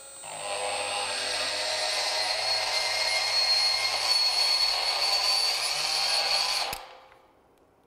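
Milwaukee M12 FUEL 1/4-inch straight die grinder running a carbide burr into thick steel tubing: a steady high-pitched motor whine with the grinding of the burr on the metal. It builds up over the first second and stops suddenly shortly before the end.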